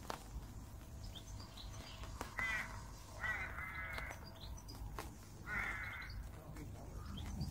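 A bird calling three times with harsh, rasping calls a second or two apart, over a steady low rumble, with a few sharp taps.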